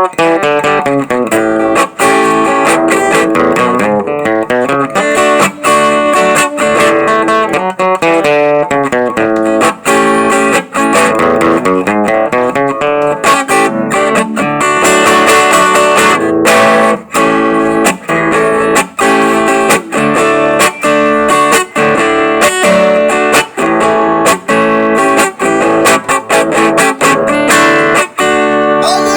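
Acoustic guitar (violão) played solo: a busy stream of plucked notes and strummed chords, with many quick note changes.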